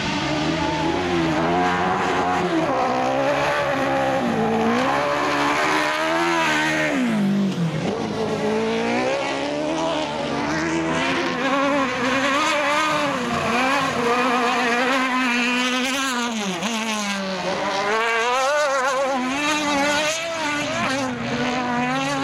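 Autocross buggy engines revving high on a dirt track, the pitch climbing and dropping again and again as the cars accelerate, change gear and back off for corners.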